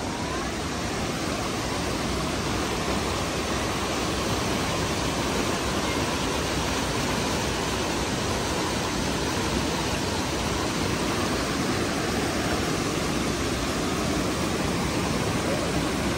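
Waterfall and fast-flowing creek water rushing over rocks, a steady, even rush.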